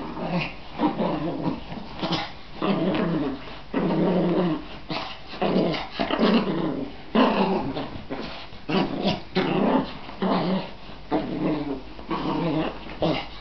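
Small dog growling angrily in a string of short, pitched growls, about one a second.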